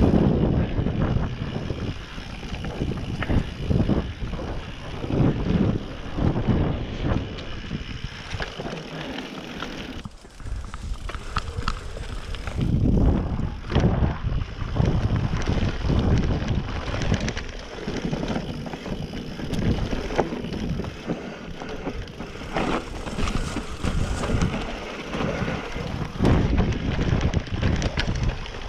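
Riding noise from a full-suspension Specialized Enduro mountain bike on a dirt forest trail: wind buffeting the action camera's microphone and tyres rumbling over the ground, with frequent clattering and ticking from the chain and frame over bumps. The noise surges and eases with the terrain and drops briefly about ten seconds in.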